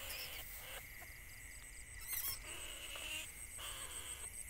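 A short, high animal squeal about two seconds in, over steady high-pitched tones in the background.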